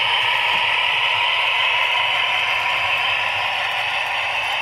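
A long rake of model railway tank wagons rolling past on the track: a steady rattle of small metal wheels running over the rails.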